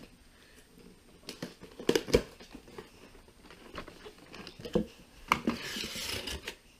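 Corrugated cardboard shipping case being lifted off its cardboard base tray: a few knocks and bumps of cardboard, the loudest about two seconds in, then a longer scraping slide of cardboard on cardboard near the end.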